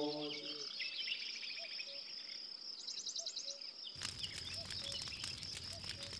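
Night forest ambience: a steady high insect drone with short bird trills and small repeated chirps. About four seconds in, the crackling of a fire starts.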